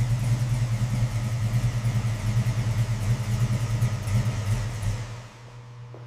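Muscle car engine running with a deep, steady rumble, dropping in level a little past five seconds in.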